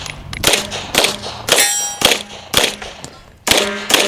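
A string of about six pistol shots, roughly half a second apart, with steel targets clanging and ringing after two of them.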